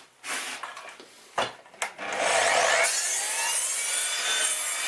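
Evolution R255 SMS-DB+ sliding mitre saw with its multi-material blade: a couple of knocks as the board is set against the fence, then about two seconds in the motor starts and the blade cuts through the wooden board at a 45-degree mitre, a loud, steady whine with the rasp of the cut.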